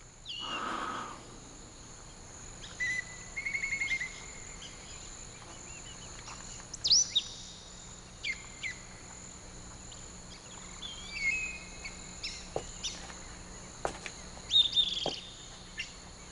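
Birds chirping and calling over a steady high drone of insects such as crickets. A short trill comes a few seconds in, followed by scattered sharp chirps.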